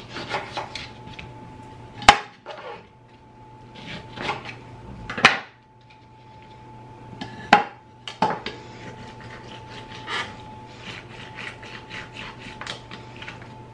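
A knife cutting through oranges and knocking down onto a plastic cutting board, four sharp knocks spread out over several seconds. In the last few seconds, orange halves are twisted and squeezed on a plastic hand reamer juicer with short, quick rubbing strokes.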